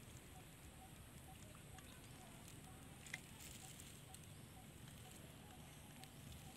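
Near silence: faint outdoor background with a soft low rumble and a faint high pip repeating about twice a second, and one small click about three seconds in.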